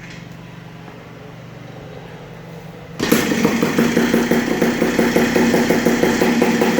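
Two-stroke Yamaha IT 200 dirt-bike engine silent for about three seconds, leaving only a low hum, then abruptly running again about three seconds in and settling into a steady idle.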